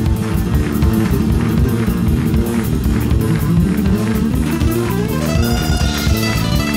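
Latin-flavoured band music: a nylon-string guitar playing over a drum kit keeping a steady beat, with a note gliding upward about four seconds in.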